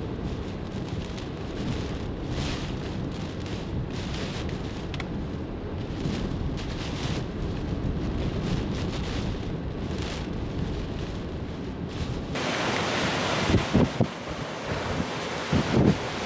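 Strong hurricane wind buffeting the microphone, heavy and low at first. About twelve seconds in it changes abruptly to a brighter rushing hiss with a few low thumps.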